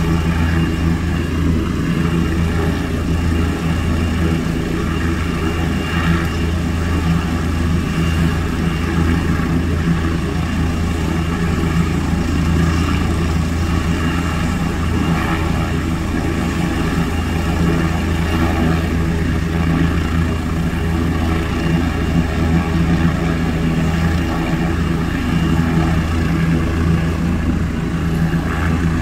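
Air ambulance helicopter running on the ground before take-off, a steady low hum of engines and rotor that holds level throughout, heard from inside a car.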